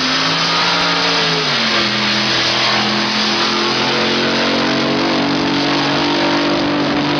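Drag boat's racing engine running hard at high revs. Its pitch drops in steps over the first two seconds, then holds roughly steady.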